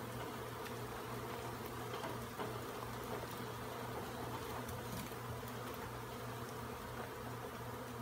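Steady buzzing of a large feral honey bee colony whose comb has been opened up and is being handled.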